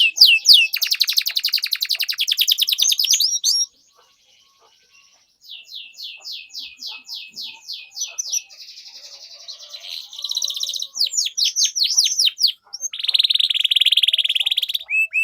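Canary singing long phrases. Series of quick, repeated, falling 'cuit cuit' chirps alternate with fast rolling trills, and the song breaks off for about two seconds after the first trill.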